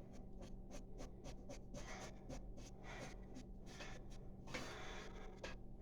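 Small plastic cap being screwed onto a toilet's flush-valve tower: a run of light scratchy clicks from the plastic parts turning against each other, over a steady low hum.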